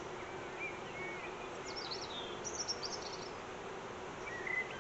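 Honeybees humming steadily around an opened hive, with small birds chirping several short notes in the middle.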